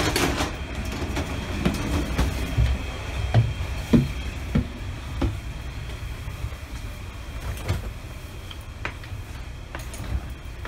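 Metra commuter train running, heard from inside a bilevel gallery car: a steady low rumble with irregular clunks and knocks, most of them in the first half.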